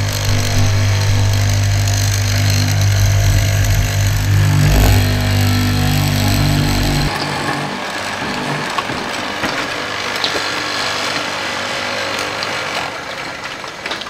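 Electric hollow-chisel mortiser running with a steady motor hum as its square chisel bores into a hardwood board. About halfway through the hum drops away, leaving a lighter, noisy scraping and crackling of the cut that fades near the end.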